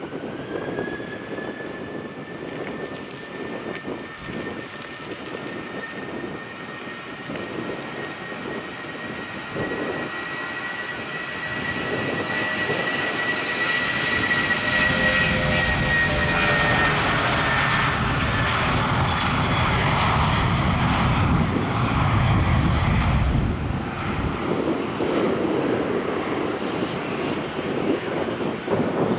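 Airbus A320 jet engines at takeoff thrust during the takeoff roll. A high fan whine rises slightly in pitch over the first half while the engine noise builds to its loudest as the airliner passes close by, with a deep rumble. The noise then eases a little as it accelerates away down the runway.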